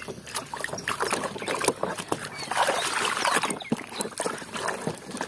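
Muddy water sloshing and splashing in a plastic tub as a hand scrubs and swishes a plastic toy bus through it, with many small splashes and drips.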